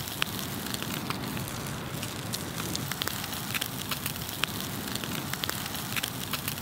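Wood campfire of burning logs crackling, with sharp, irregular pops and snaps over a steady hiss.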